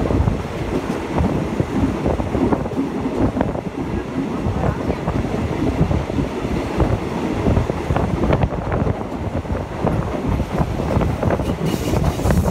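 Passenger train running, heard at an open carriage window: wind buffeting the microphone over the steady rumble and clatter of the wheels on the rails. The hiss of the wind rises near the end.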